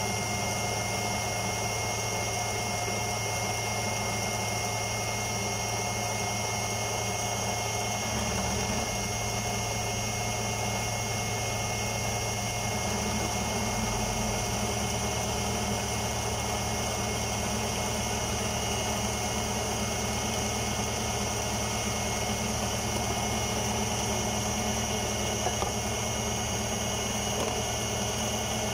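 Electric food processor motor running steadily, blending banana bread batter.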